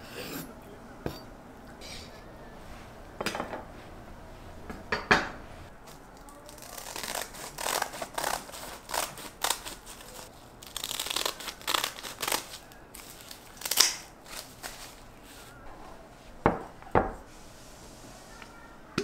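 A kitchen knife slicing pickled radish into strips on a wooden cutting board, with a few sharp knocks on the board. Then kitchen scissors cut through sheets of dried laver (gim) with crisp, crackling snips. Near the end a wooden spatula stirring rice in a glass bowl gives a couple of sharp knocks.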